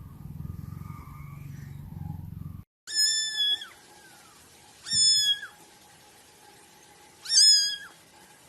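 A low steady rumble for the first couple of seconds, then a kitten meows three times, high-pitched and loud, about two seconds apart.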